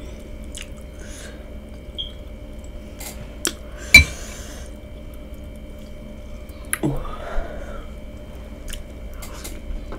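Metal spoon clinking against a glass bowl of seafood-boil sauce: scattered light clicks, with one sharp, ringing clink about four seconds in.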